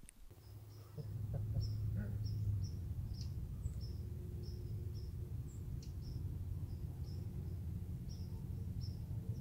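A small bird chirping: short, high calls repeated about once or twice a second over a steady low rumble of outdoor background noise that comes in about a second in.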